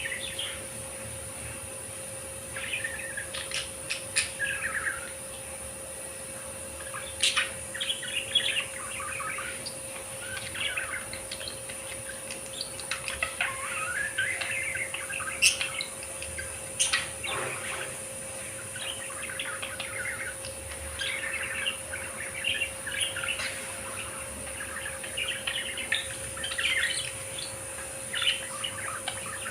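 Budgerigars chattering: irregular runs of chirps and warbles, with a few sharper squeaks standing out.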